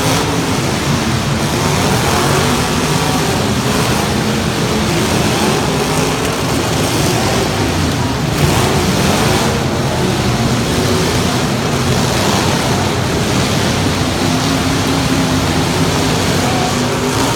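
Competition truck engine running loud at high revs, its pitch wavering up and down over a steady wash of noise.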